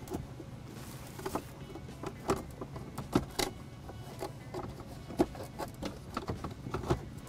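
Hands working plastic dash trim and wiring connectors behind a digital instrument cluster: scattered light clicks and knocks, over a steady low hum.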